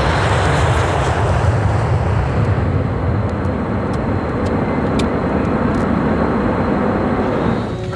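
Jet airliner engines at takeoff power: a loud, steady roar whose higher part fades after about two seconds, leaving a deep rumble. It gives way suddenly to music right at the end.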